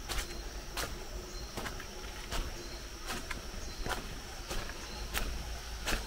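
Footsteps on a leaf-littered dirt path, about one step every three-quarters of a second, over a steady high insect trill and short, regularly repeated insect chirps.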